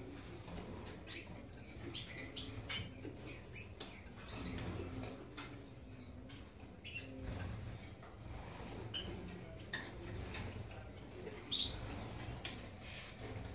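Gouldian finches in the nest giving short, high-pitched chirps, one every one to two seconds.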